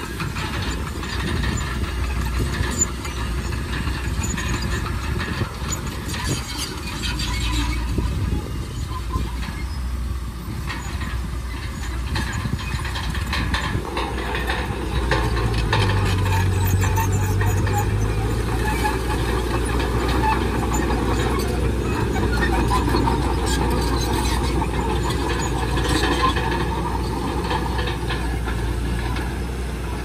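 Komatsu D31PX crawler bulldozer working: its diesel engine running steadily while the steel tracks clank and click. The engine gets louder about halfway through.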